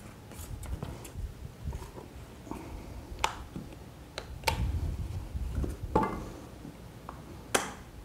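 Handling noise from an angle grinder fitted with a plastic dust-extraction cutting guard and hose while it is being positioned, not yet running: scattered sharp clicks and knocks over a low rumble, four of them standing out.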